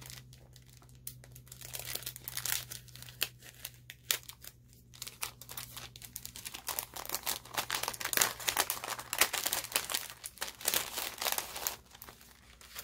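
Clear cellophane sleeve crinkling and crackling as hands open it and slide paper tags out; the crackling is sparse at first and becomes busy and irregular after about two seconds.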